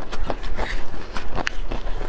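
A cooked bamboo shoot being torn apart by gloved hands: fibrous crackling and snapping, many small irregular clicks.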